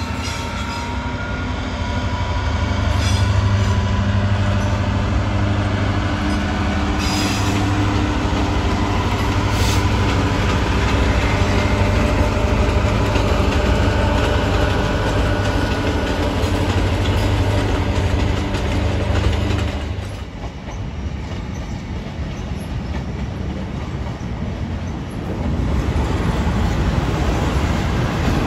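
GB Railfreight class 66 diesel locomotive hauling freight wagons past, its two-stroke engine giving a steady low drone over the rolling of the wheels. About twenty seconds in the engine sound stops abruptly, and a quieter rumble of train noise follows, growing louder again near the end.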